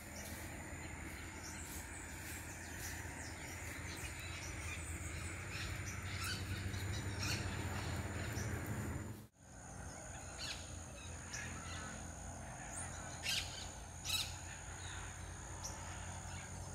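Birds chirping and calling over a steady high-pitched insect drone. The sound cuts out for a moment about nine seconds in, and two louder bird calls come a few seconds later.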